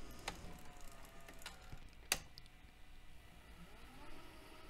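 Faint mechanical clicks from a Mitsubishi HS-U760 S-VHS VCR's tape transport as it is switched into rewind, with a sharper click about two seconds in. A faint motor whine rises in pitch near the end.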